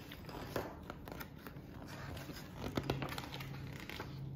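Pages of a paperback picture book being handled and turned: papery rustling with a sharper flap about half a second in and another about three seconds in.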